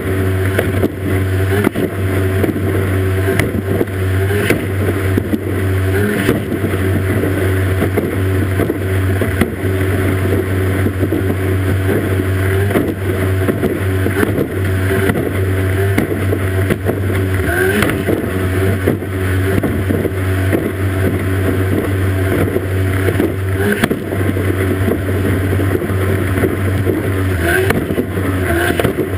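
Racing outboard motor running hard at a steady note as the boat races, with rushing water and spray and frequent short knocks as the hull hits the water.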